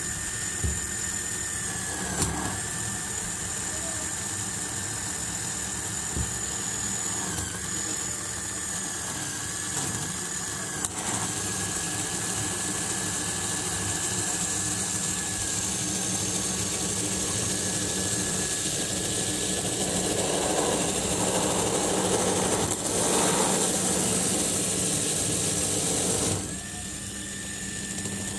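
Small Lego electric motor whining steadily as it drives a Lego Technic model engine, its plastic gears and pistons turning; the whine dips briefly now and then. It gets louder and rougher for a few seconds, then cuts off suddenly near the end.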